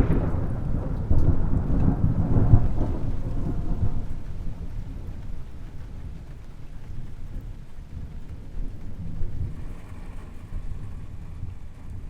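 Thunder: a loud low rumble that breaks in suddenly, rolls for several seconds, then fades.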